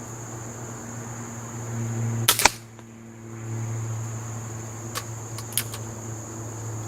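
Benjamin Trail NP nitro-piston air pistol fired once about two seconds in, a sharp double crack, followed a few seconds later by several light clicks.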